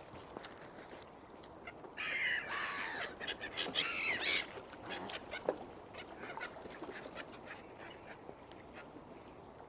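Waterfowl calling: a burst of overlapping honking calls about two seconds in that lasts a couple of seconds, followed by scattered small clicks and taps.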